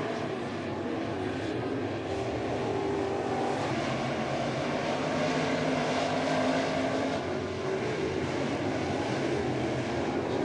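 Race car engines running together on a dirt oval, heard at a distance as a steady, blended engine drone that swells a little as the field goes round.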